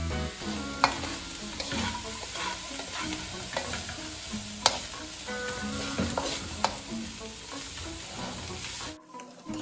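Vegetables sizzling in oil in a hot wok while a wooden spatula stirs them, with sharp clicks as the spatula knocks against the metal pan. The sizzle cuts off suddenly about nine seconds in.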